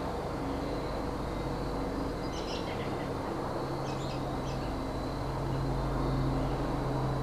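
Cessna 172S Skyhawk SP's four-cylinder piston engine and propeller droning steadily overhead, a little louder near the end. A few short bird chirps come about two and a half and four seconds in.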